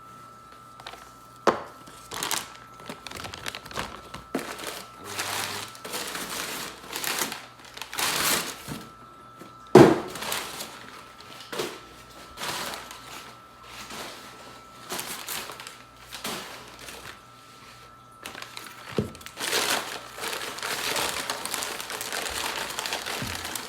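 Packaging crinkling and rustling as motor mounts are unwrapped by hand, with scattered sharp knocks, the loudest about ten seconds in, and a denser stretch of rustling near the end.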